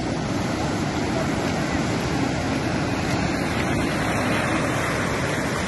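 Ocean surf washing up a sandy beach: a steady rush of breaking waves and foaming backwash.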